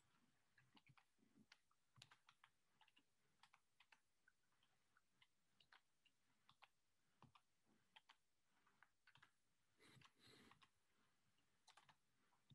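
Near silence with faint computer keyboard typing: scattered, irregular soft key clicks.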